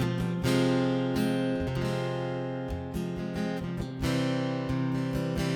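Acoustic guitar strumming chords in an instrumental passage of a gospel song, with no singing.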